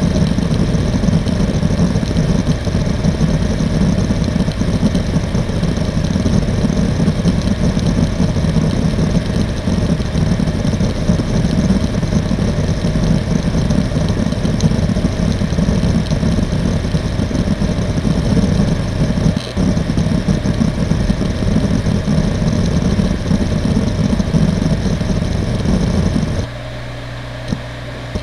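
Seagate Barracuda ES.2 ST31000640SS 7200 rpm SAS hard drive running a random seek test: the heads chatter in a fast, continuous clicking rattle over the whir of the spinning platters. Near the end the seeking stops abruptly, leaving only the drive's steady idle hum and a single small click.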